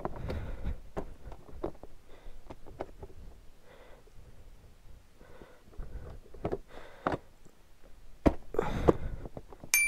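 A KTM Duke 200's pillion seat being lifted off and fitted back by gloved hands: irregular plastic knocks, scrapes and rustles. There is a sharp click about eight seconds in and a louder clatter just after. A short high beep comes right at the end.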